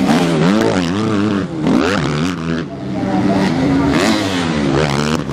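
Motocross bike engines revving hard and dropping off, several times in a row, as the bikes take off over a jump and land. More than one bike runs at once.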